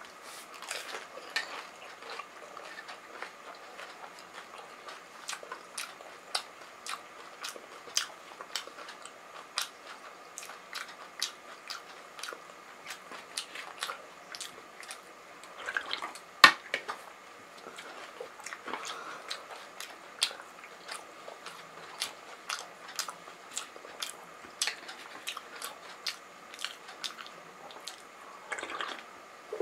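Close-up chewing and crunching of a pani puri, full of sharp mouth clicks, with sips of the spiced pani water taken from a steel bowl held to the lips. One sharp knock about halfway through is the loudest sound.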